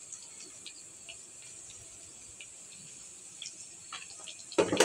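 Meatballs deep-frying in hot oil in a wok: a steady high sizzle with scattered small crackles. A short loud clatter comes near the end.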